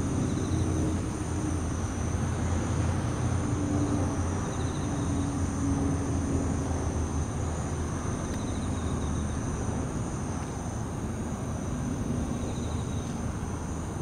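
Bell crickets (suzumushi) giving short pulsed chirps every few seconds, over a steady high insect trill. Underneath lies a low rumble of city traffic, the loudest part of the sound.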